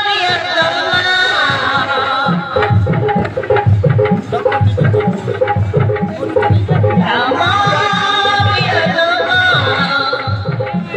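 Folk music: a melody with wavering, ornamented pitch and steady repeated notes, joined about two and a half seconds in by a regular drum beat.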